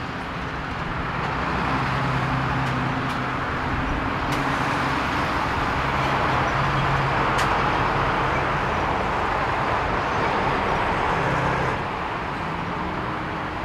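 Jet engines of a Boeing 737-400 freighter at taxi power: a steady rushing noise over a low hum. It grows louder over the first couple of seconds and drops off suddenly near the end.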